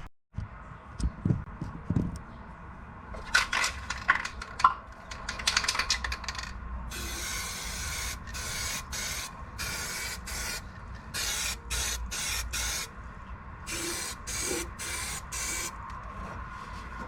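Welder laying a string of short stitch welds on a car's subframe repair plate: crackling hiss starting and stopping in bursts, each under about a second, with a few light knocks near the start.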